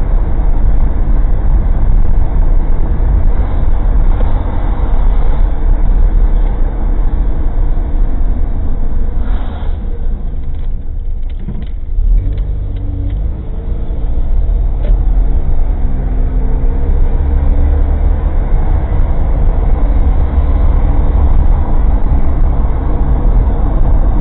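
Suzuki Jimny kei car driving, heard from inside the cabin through a cheap dashcam: loud engine and road noise. It eases off about ten seconds in, then the engine note climbs as the car picks up speed again.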